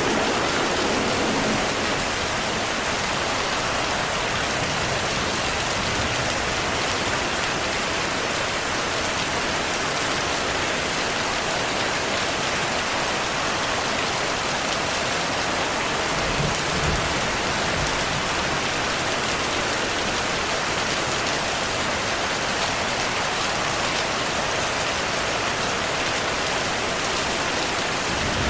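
Steady heavy rain falling, an even hiss of drops, with faint low rumbles of distant thunder near the start and again a little past the halfway point.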